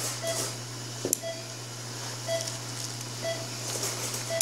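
Operating-room patient monitor sounding a short mid-pitched pulse beep about once a second, over a steady low equipment hum. A single sharp click about a second in.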